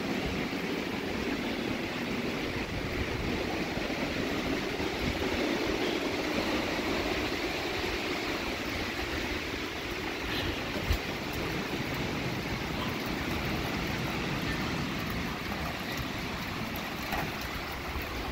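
Strong storm wind rushing steadily through trees and buffeting the microphone, with a single brief thump about eleven seconds in.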